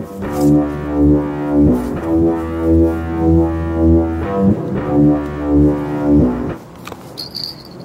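Background music: a low, droning tone that swells and fades in a steady pulse about one and a half times a second, then drops away about six and a half seconds in.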